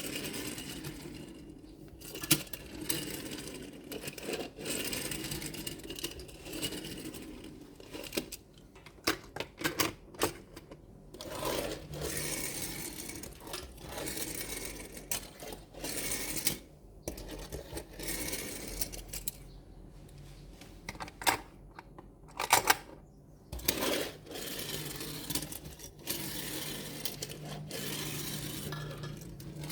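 Small diecast toy trucks being handled, with repeated clicks, taps and rattles of small metal and plastic parts.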